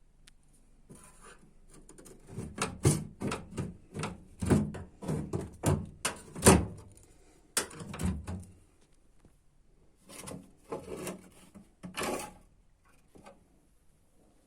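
A series of irregular knocks and thuds in two clusters, with a pause of about a second and a half between them, like things being handled and bumped against a hard panel.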